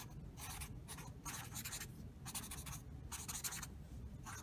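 Pen writing on paper: a series of short, scratchy strokes, played as a sound effect.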